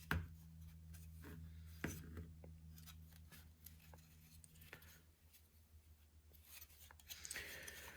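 A few faint clicks and taps of plastic model kit parts being handled, over a low steady hum that stops about five seconds in.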